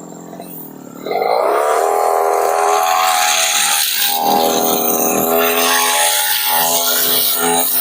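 Brush cutter engine throttled up about a second in, its pitch rising to a steady high speed, with the hiss and rasp of the spinning cutter slashing through grass and undergrowth.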